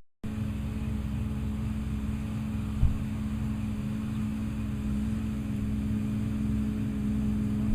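Massey Ferguson 2600-series tractor engine running steadily under a low, even rumble with a constant hum, starting abruptly. A single thump comes about three seconds in.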